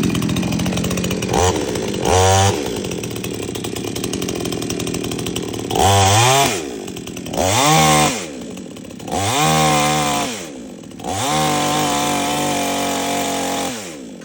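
58cc two-stroke chainsaw running and being revved in repeated throttle bursts, each rising and falling back to idle. The last burst is held for a couple of seconds.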